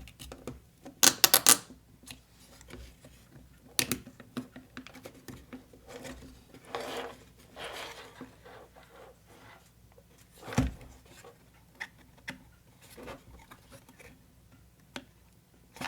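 Hands handling small miniature-kit parts and wiring: scattered light clicks, taps and scraping, with a quick run of sharp clicks about a second in and a dull knock about two-thirds of the way through.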